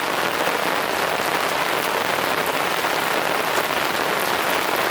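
Heavy rain falling, a dense, steady patter.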